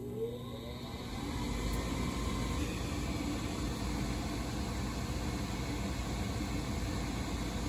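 Heil gas furnace fan motor spinning up: a whine rising in pitch for about the first second, then running steadily with a rush of air.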